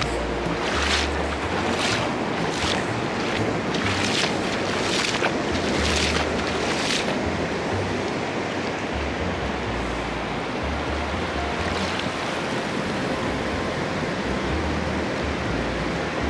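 Water splashing and dripping close by, with a short rush of spray about once a second for the first seven seconds, then a steadier wash. Background music with a low bass line plays underneath.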